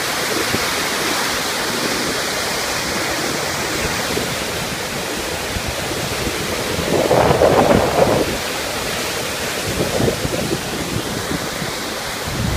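Shimanto River in flood after the typhoon, a steady rush of high, fast water, with wind on the microphone. The noise swells louder for about a second around seven seconds in.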